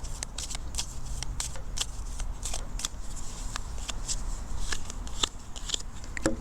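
A deck of Lenormand cards being handled and shuffled, a run of quick, irregular light card snaps and slides.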